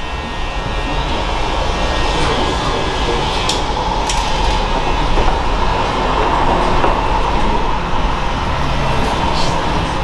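Steady rumble and hiss of a moving vehicle, with a few faint clicks.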